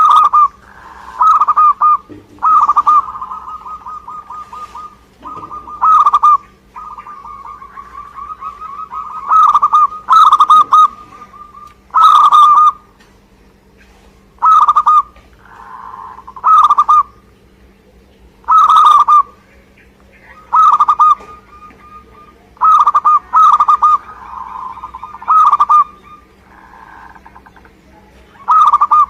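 Zebra dove (perkutut) calling over and over: short, loud rolling coos about every two seconds, with softer rattling trills between them.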